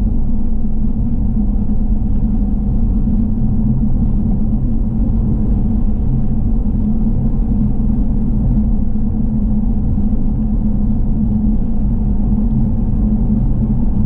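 Car driving at a steady pace: an even, unbroken low rumble of road and engine noise.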